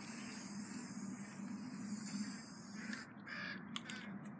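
Aerosol spray paint can spraying onto a wooden board: a steady hiss for about three seconds that then stops, followed by a few light clicks.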